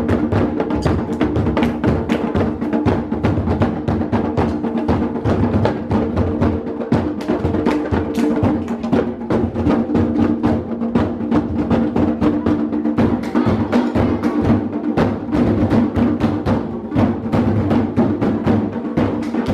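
Fast, driving percussion music: rapid sharp wooden strikes and deeper drum beats in a busy, unbroken rhythm over a steady held note.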